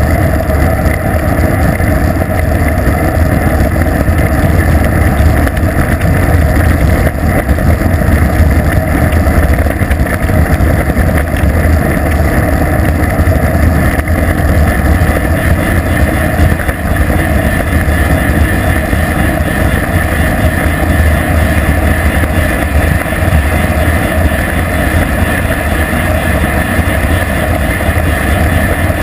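Wind buffeting a GoPro camera's microphone on a bicycle coasting fast downhill, a loud, steady low rumble.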